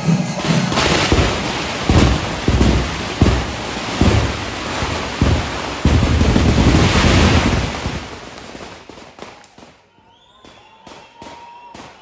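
Temple chenda melam (panchari) at full force: massed chenda drum strokes and clashing cymbals in a dense, loud din. It dies away about eight seconds in, leaving only the crowd's scattered noise.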